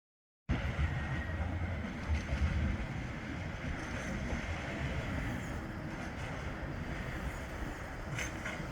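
Bombardier Flexity 2 tram running with a steady low rumble, starting abruptly about half a second in, with a short sharp click near the end.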